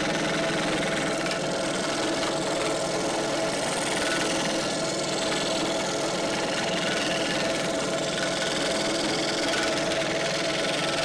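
Electric scroll saw running steadily, its fine blade cutting through a thin wooden board. It makes an even motor hum with a steady mid-pitched tone.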